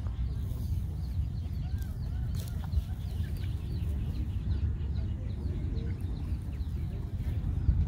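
Chickens clucking over a steady low rumble.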